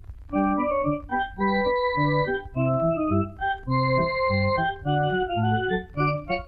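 Keyboard music: a lively tune in held chords over a bass line that steps from note to note a few times a second.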